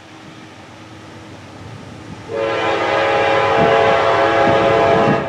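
Norfolk Southern GE AC44C6M locomotive's air horn sounding one long blast, a chord of several notes, starting about two seconds in and stopping sharply near the end, over the low rumble of the approaching freight train.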